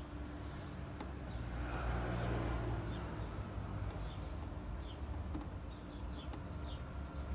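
A vehicle passing, swelling and fading about two seconds in over a steady low rumble, while a bird chirps repeatedly with short falling notes.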